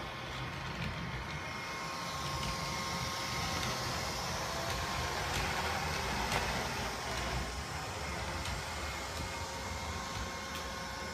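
Neato Botvac D80 robot vacuum running on a hardwood floor: a steady whir from its motors with faint steady tones, and a few light clicks.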